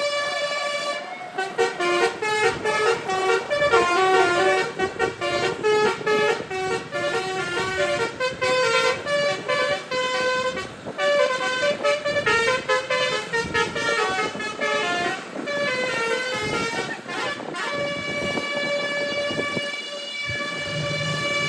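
Multi-tone basuri (telolet) bus horn playing a quick melody of stepping notes, starting about a second in and stopping near the end, with a long held horn note before and after it.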